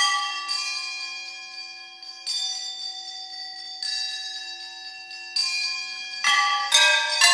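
Solo metal percussion: found metal objects struck one at a time, each hit ringing out in clangorous, bell-like tones that slowly die away. About eight strikes fall at uneven intervals, with a quicker cluster of loud hits near the end.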